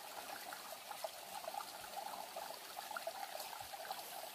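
Small mountain creek trickling and babbling over rocks, a steady flow.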